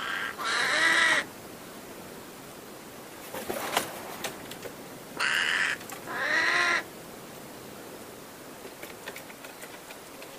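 New Caledonian crow giving harsh, nasal calls in two pairs, about five seconds apart. A few faint sharp clicks fall in the gap between them.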